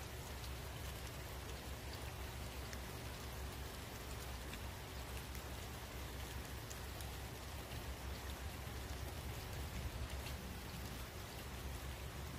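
Steady outdoor background noise: a low rumble under an even hiss, with scattered faint ticks and no distinct event.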